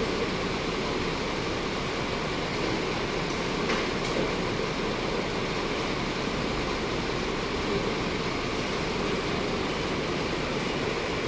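Steady rumble of vehicles in motion, with a faint click about four seconds in.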